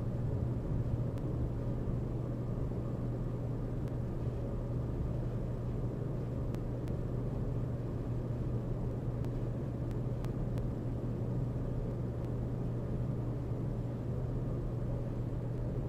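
A steady low rumble with an even hum, unchanging throughout.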